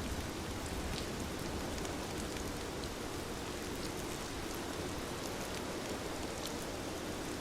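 Steady rain falling, an even hiss with scattered faint sharp ticks of drops or crackles.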